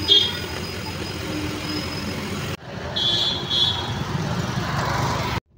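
City street traffic noise, a steady hum of passing vehicles, with two short high-pitched chirps about three seconds in.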